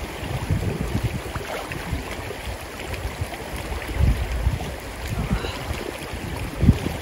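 Shallow river flowing, with water sloshing around people lying in it and wind buffeting the microphone in uneven low gusts.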